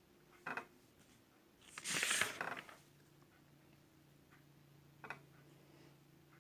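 Small handling sounds at a desk: a light knock, then a brief rustle lasting about a second, then another light knock. A faint steady hum comes in after the rustle.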